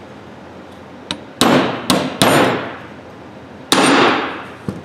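Ball-peen hammer striking a steel pin punch to drive out the hinge pin of a breaker bar's flex head: a light tap, then three hard blows in quick succession and a fourth about a second and a half later, each with a metallic ring after it.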